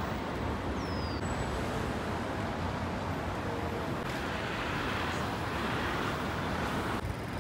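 Street traffic noise: a steady wash of passing cars. About a second in there is a short, high, falling squeak.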